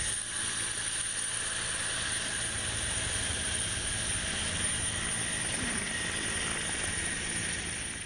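Rescue helicopter's rotor and engine noise, heard close at the open cabin door during a winch descent to the sea: a steady din with a high, even whine.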